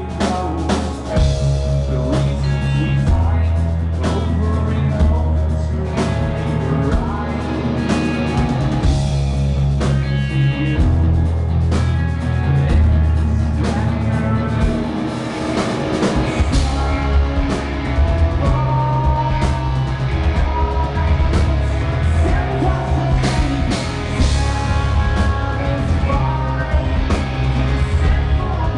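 Live rock band playing a song loud: drum kit, electric guitar and bass, with a male singer.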